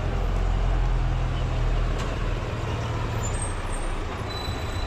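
Low, steady rumble of a motor vehicle's engine running close by, easing off about three seconds in.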